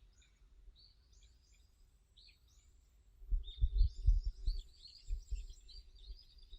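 Wild birds chirping and trilling in short overlapping phrases. A cluster of low, dull thumps comes about three seconds in and a couple more a second later, louder than the birdsong.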